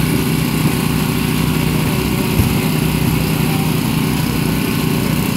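Small petrol engine of a hydraulic rescue-tool power unit running steadily at one constant speed, supplying pressure to the extrication tools.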